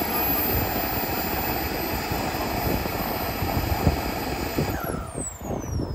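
Turbine engine of a radio-controlled scale F-86 Sabre jet model, a steady high whine as it flies a low pass. About five seconds in, the whine drops sharply in pitch and the sound fades as the jet goes by.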